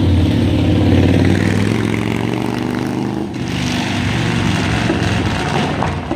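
Street traffic: a motor vehicle's engine running with a steady low hum, and a second vehicle passing with a rush of noise from about three seconds in to near the end.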